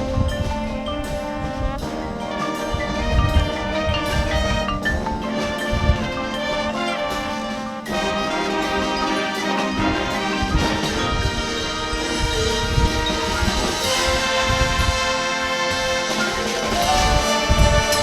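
High school marching band playing its field show: brass holding chords over drums and percussion, swelling louder near the end.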